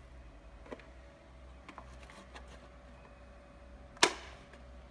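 A single sharp plastic click about four seconds in as the extraction nozzle snaps onto the Blue Evolution S+ steam cleaner's handle, after a few faint handling taps, over a faint steady hum.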